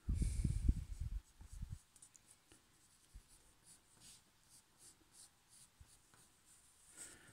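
Pencil scratching on paper in short shading strokes, about two a second. A low rumble of thumps in the first second or two is louder than the strokes.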